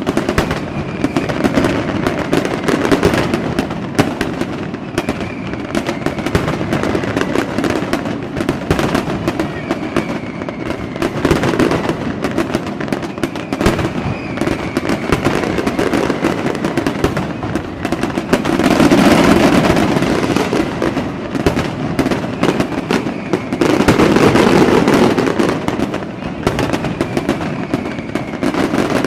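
Fireworks going off continuously: dense crackling and popping, with louder swells of bursts about two-thirds of the way in and again near the end.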